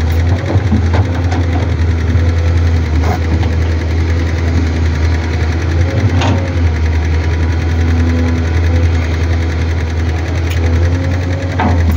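Matador ME220 excavator's diesel engine running steadily under load as the bucket digs soil, a deep constant drone with higher hydraulic tones rising in and out as the boom and bucket move. There are a few sharp knocks, around a quarter and half way in and again near the end.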